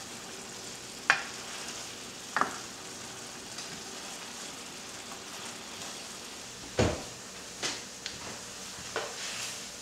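Thick cream sauce of a chicken stew simmering with a low, steady sizzle in a stainless steel sauté pan, while a spoon scrapes through it and knocks against the pan a handful of times. The loudest, deepest knock comes about seven seconds in.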